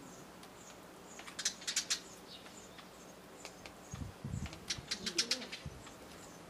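A Eurasian tree sparrow pecking at rice on foil in a plastic dish: two quick runs of sharp beak clicks, then a brief flutter of wings as it flies off. Faint bird chirps in the background.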